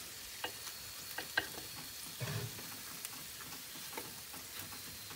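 Chicken drumsticks faintly sizzling in butter on a hot oven baking tray, with a few light clicks and a soft bump as metal tongs turn the pieces over.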